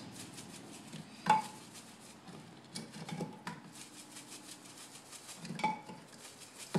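Lemon pepper seasoning shaken from a plastic shaker bottle onto raw chicken in a ceramic slow-cooker crock: a faint repeated rattling hiss, with a few sharp knocks that ring against the crock, the loudest about a second in.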